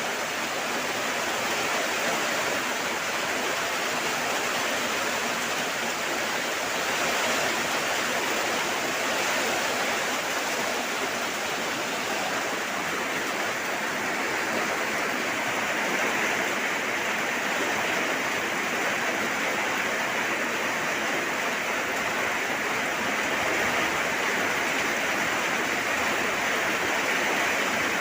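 Steady heavy rain: a dense, even hiss of falling water with no separate drops standing out.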